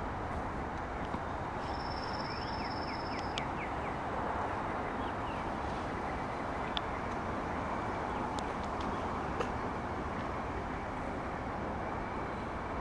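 Steady rushing outdoor background noise. Over it are a thin high whistle lasting about two seconds, starting near two seconds in, a few faint short chirps, and scattered small clicks.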